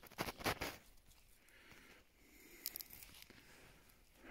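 Bracken rhizomes being dug and torn out of the soil: roots tearing and earth crunching in a quick cluster at the start, then a few faint crackles.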